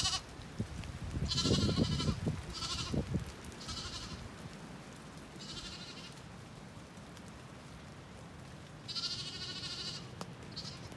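A Zwartbles lamb bleating about five times in short, high calls, looking for its mother. A low rumble runs under the first two calls.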